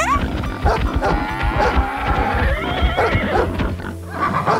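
Cartoon farm-animal sound effects, a cow mooing among several overlapping animal calls.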